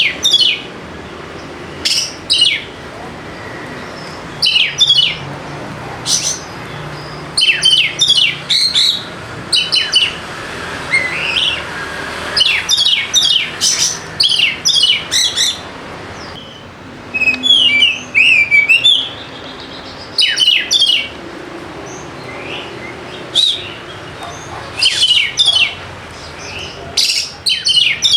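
Oriental magpie-robin singing: loud, sharp chirps in quick clusters every second or two, with a warbling phrase about two-thirds of the way through, over a steady low background noise.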